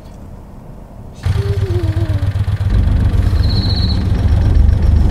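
Car engine and road noise: a steady low rumble that comes in suddenly about a second in, after a quieter stretch. A brief high pulsed chirp sounds near the middle.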